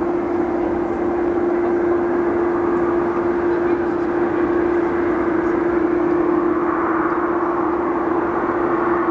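Steady jet aircraft turbine noise: an even rushing drone with one constant tone held through it.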